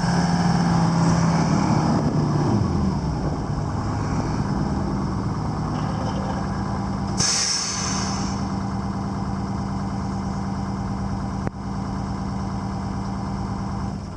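Grove TMS 300 truck crane's diesel engine running, its speed falling over the first few seconds to a steady idle. There is a short hiss of released air about seven seconds in.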